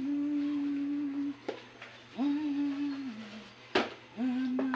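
A voice humming a slow tune in long held notes, three phrases with short breaks between them. A single sharp knock comes near the end.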